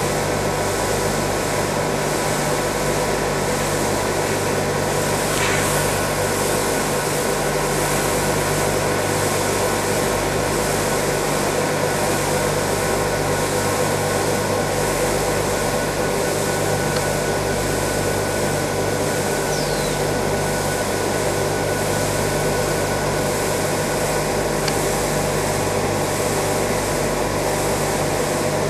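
Bag filling and stitching packing machine running steadily: an even mechanical drone with constant low tones that does not let up.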